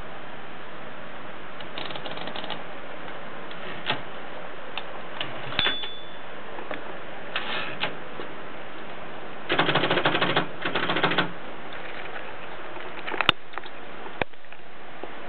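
Red Brother 220 typewriter being typed on: scattered single keystrokes, then a fast run of keystrokes in two quick bursts a little past halfway, over a steady hiss.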